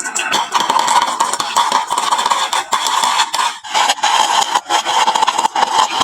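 Marbles rolling and clattering down a wooden marble run track: a continuous rattling rumble made of many small rapid clicks.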